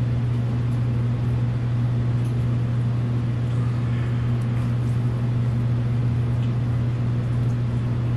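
A steady low electrical hum, unchanging throughout, with faint soft sounds of bread dough being pulled and stretched by hand.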